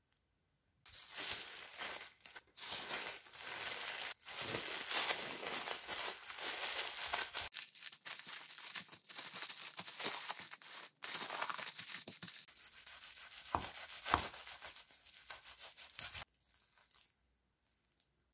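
Plastic cling wrap crinkling and rustling as it is pulled and pressed around a sandwich, with a few sharper crackles. It starts about a second in and stops a couple of seconds before the end.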